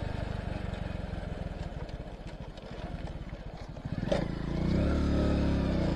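Motorcycle engine and road noise heard from the rider's seat, the engine easing off over the first few seconds. About four seconds in there is a short knock, and the engine note becomes steadier and louder.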